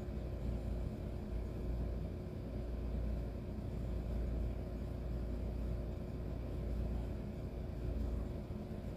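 Steady low background rumble with a faint constant hum underneath and no distinct events.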